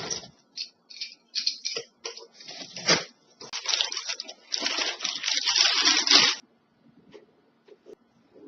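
Packaging being opened: irregular crinkling and tearing, loudest in a dense stretch through the middle, then stopping and leaving a few faint clicks.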